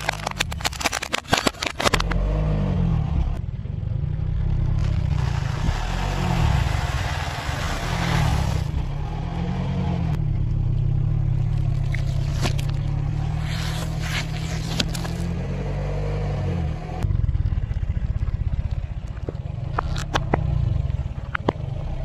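Car engine running low as the tyre rolls over and crushes objects. A rapid burst of cracking and crunching comes in the first couple of seconds, then a few seconds of hiss, and later scattered sharp cracks and clicks.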